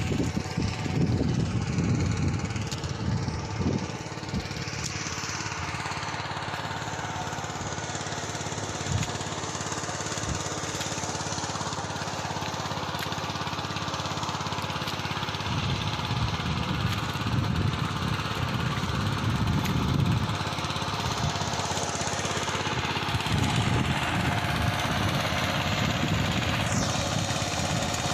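Small engine of a farm machine ploughing a field, running steadily, its sound swelling and easing as it works.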